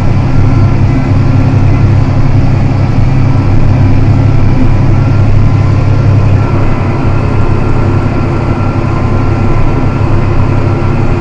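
John Deere 7280R tractor engine running steadily under load while pulling a plough, a continuous low drone.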